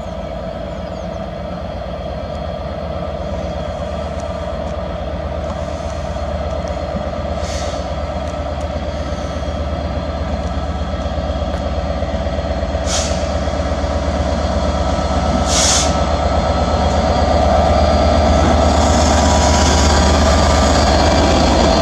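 Class 67 diesel-electric locomotive, a two-stroke V12, drawing into a station, its engine drone growing steadily louder as it approaches and passes. Three short air hisses come through in the middle.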